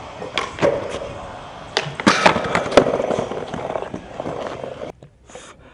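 Skateboard wheels rolling on concrete, with several sharp clacks and board impacts, the loudest cluster about two seconds in, as a trick is tried at a ledge and flat bar. The sound cuts off suddenly near the end.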